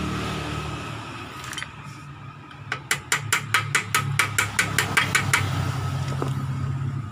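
A bushing being tapped into the pivot housing of a Yamaha Vixion's steel swing arm: a quick run of light metallic taps, about five a second, starting a little under three seconds in and stopping about two and a half seconds later, over a steady low hum.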